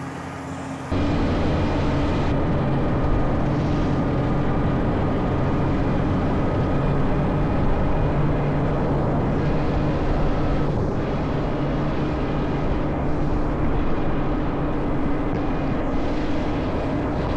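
CLAAS Lexion 8900 combine harvester running steadily while working in wheat: a low engine drone with a steady hum. It jumps louder about a second in.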